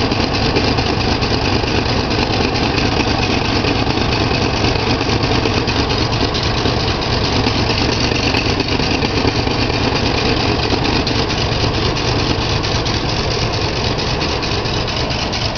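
1985 Dodge Ramcharger's carbureted engine idling steadily, heard up close in the engine bay. It has a leak that the owner first took for an exhaust leak, and a vacuum hose hangs disconnected from its fitting.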